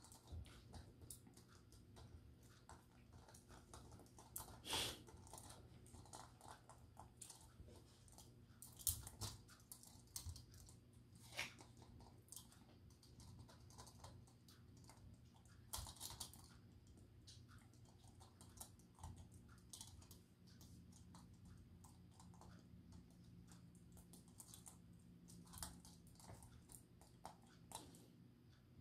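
Morkie puppy gnawing a small round plastic toy: faint, irregular clicks and clacks of teeth on hard plastic, with a few louder clacks scattered through.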